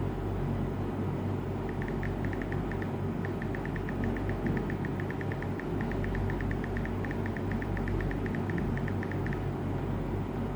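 iPhone keyboard clicks: a rapid run of short, light ticks as keys are typed, starting about two seconds in and stopping about a second before the end, over a steady low rumble.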